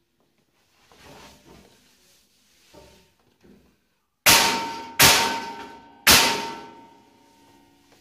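A steel snake-rack shelf being knocked down into its frame through a wooden strip: three hard strikes within about two seconds, each making the steel ring and fade, after a few light knocks and handling sounds.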